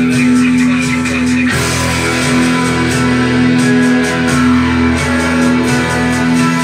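Guitar-led rock music from a cassette tape, played through Technics SB-A36 tower speakers and heard in the room. A sustained chord changes about a second and a half in.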